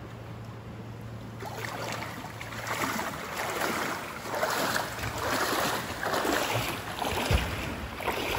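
Shallow lake water sloshing and splashing around legs in waders, in swells about once a second as someone wades beside a floatplane's floats, with a low thump near the end.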